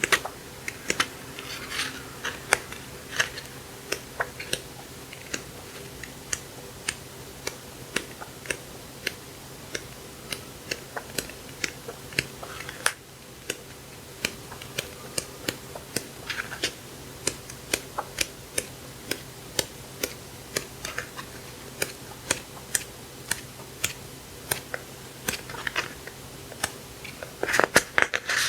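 Handling of paper craft supplies: a steady run of sharp clicks, about two to three a second, with paper rustling now and then and a faint steady hum underneath.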